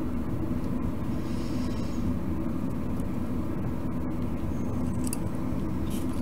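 Steady low background rumble, with a couple of faint light ticks near the end.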